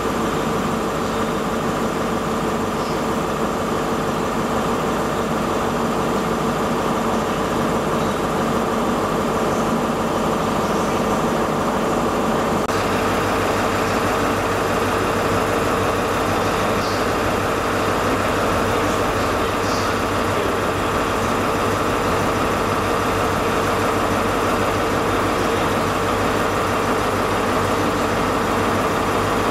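Steady drone of diesel train engines with a constant hum. About halfway through, the sound abruptly becomes fuller and brighter as a Class 43 HST draws slowly into the platform.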